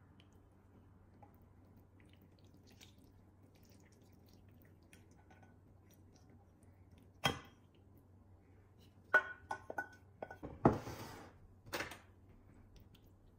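Kitchenware handled on a counter: a single sharp knock about halfway through, then a quick run of clinks with brief ringing, a short scrape and a last knock near the end.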